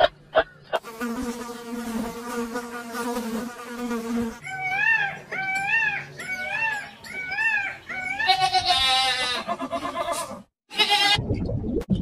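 A steady buzzing drone like a flying insect, then a run of about five short rising-and-falling animal calls a little under a second apart. It breaks off briefly near the end and gives way to a low rumble.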